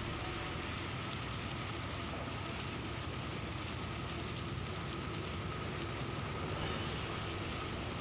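Steady engine drone under a constant rushing hiss, as of a motor boat underway.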